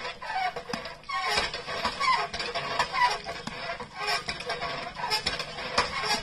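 Hand pump worked by an elephant's trunk: the iron handle and pivot squeak and clank over and over with each stroke.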